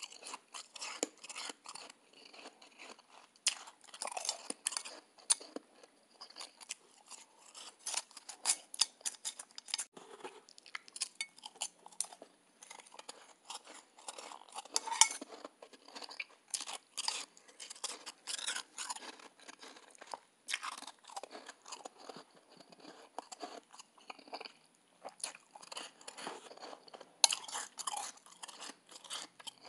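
A person chewing soft, snow-like white ice close to the microphone: a dense, irregular run of crisp crunches.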